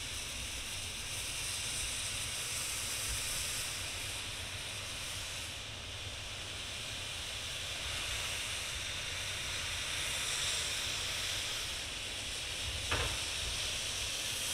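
C58 steam locomotive's cylinder drain cocks blowing off steam in a steady hiss. A single short knock is heard near the end.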